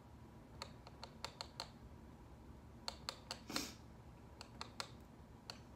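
Faint, scattered light clicks and taps from a small plastic bottle being handled and pressed on a hard work board, with a short scrape about three and a half seconds in.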